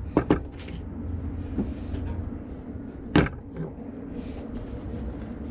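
Cast aluminium ingots knocking against each other and the wooden workbench as they are handled and lined up: two quick knocks near the start and a louder one about three seconds in, over a low steady hum.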